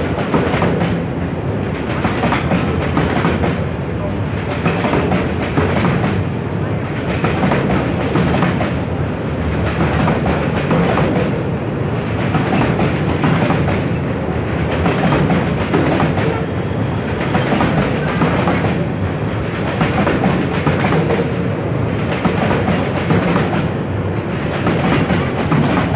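Container freight train rolling past at close range: the flat wagons' wheels on the rails make a continuous rumble and rattle that swells regularly, about every two and a half seconds, as each wagon goes by.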